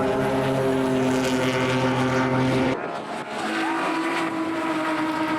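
Classic touring race car engines running hard at racing speed, a steady note that breaks off abruptly about halfway through and gives way to a different engine note that rises in pitch, then holds.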